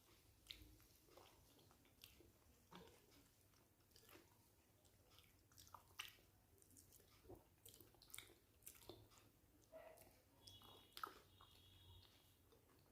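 Faint close-miked chewing and wet mouth sounds of someone eating rice with fish curry, a string of small irregular clicks and smacks.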